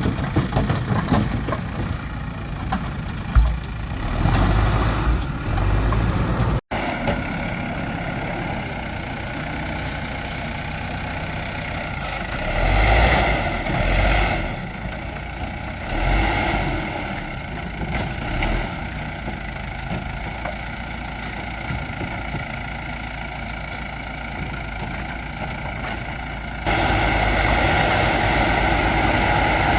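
Escorts backhoe loader's diesel engine running steadily, its note swelling briefly several times as the machine works. The sound breaks off for an instant about seven seconds in and is louder for the last few seconds.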